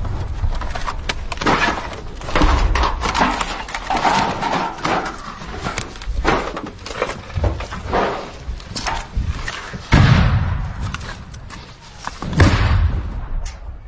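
Irregular knocks, thumps and clatter of a soldier moving fast with gear, close to a helmet-mounted camera, with a sharp loud bang about ten seconds in and another thud near the end.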